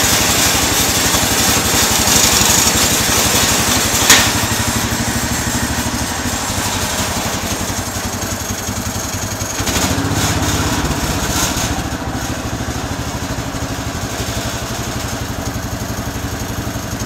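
Small gas engine of a homemade bandsaw mill running steadily. A sharp knock about four seconds in, after which the sound steps down and runs quieter, with a brief louder stretch around ten to twelve seconds.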